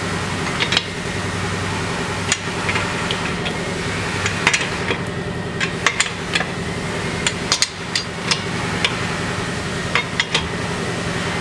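Lug nuts being tightened onto the wheel studs of a car's spare tire, heard as scattered sharp metallic clicks and clinks of the nuts and tools.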